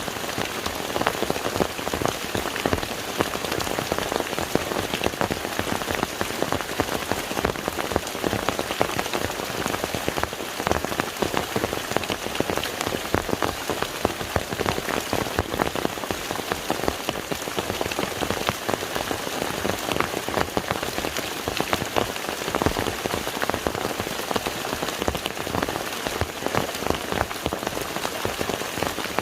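Steady rain falling on a lake, with a dense scatter of separate drop impacts over an even wash.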